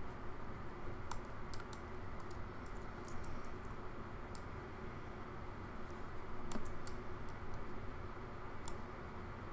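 Scattered clicks of a computer keyboard and mouse, a few at a time with pauses between, over a steady low background hum.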